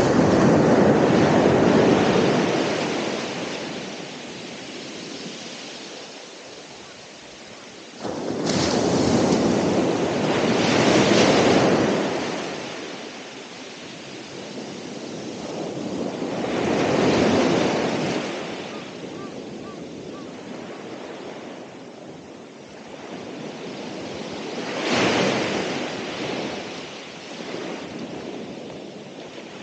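Ocean waves breaking and washing up the shore, coming in four surges about eight seconds apart, each swelling then draining away; the second surge breaks suddenly, about eight seconds in.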